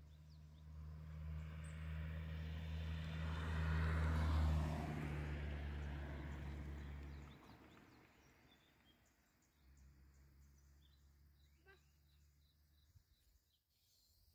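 A motor vehicle passing on the road, its engine hum and tyre noise growing louder, peaking about four to five seconds in, then fading away by about seven seconds. A fainter low hum comes back for a few seconds near the end.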